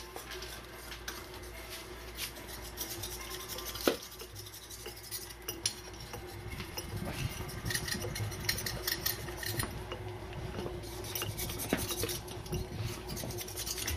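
Maxant hand-cranked stainless steel honey extractor being turned, honey frames spinning in the drum with a busy metallic clicking and rattling. The rumble of the spinning basket builds and grows a little louder about halfway through.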